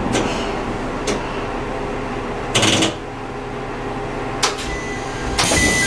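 Diesel railcar standing at a platform with its engine idling, broken by a few sharp clicks and knocks. Near the end a loud hiss of air from the railcar's pneumatics starts.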